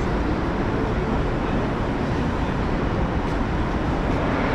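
Steady city street traffic noise, a constant low rumble with no distinct single events.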